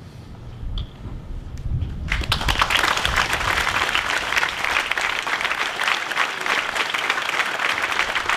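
Audience applauding, beginning suddenly about two seconds in and holding steady, preceded by a low rumble.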